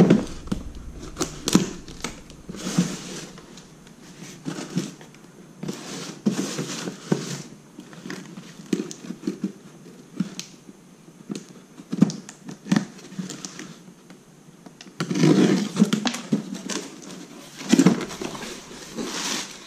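Cardboard box being opened by hand: scattered knocks and scrapes as the box is turned and its tape pulled, with denser rustling near the end as the plastic-wrapped contents are reached.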